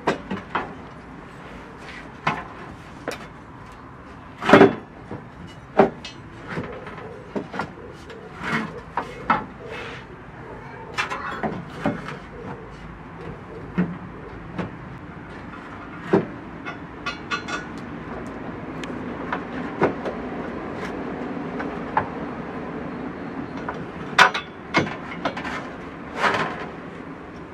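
Irregular metal knocks, clinks and scrapes of a towbar bracket and its bolts being handled and wiggled into position inside a car's rear crossmember, the sharpest clank a few seconds in.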